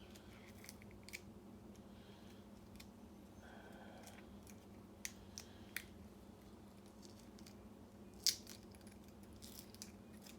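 A few faint small clicks and taps of a metal key and lock cylinder being handled, with one sharper click about eight seconds in, over a low steady hum.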